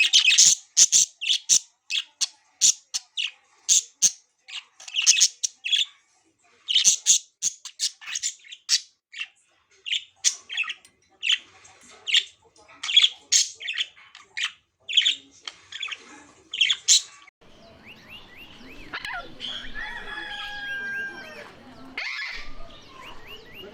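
Pet budgerigars chirping: a long run of short, sharp, high chirps, several a second, that gives way about two-thirds of the way through to a softer, continuous warbling chatter with whistled gliding notes.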